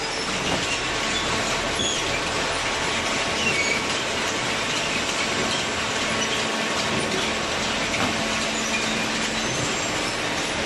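Paper recycling baling press running: a steady mechanical noise with faint steady tones and a few brief high squeaks.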